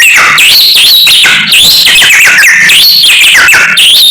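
Samyong songbird singing non-stop, a rapid, unbroken string of loud whistled notes that glide up and down in pitch.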